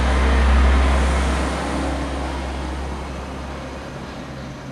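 A road vehicle passing by outside, heard through a partly open window: a deep engine rumble with road noise that swells about half a second in and then slowly fades away.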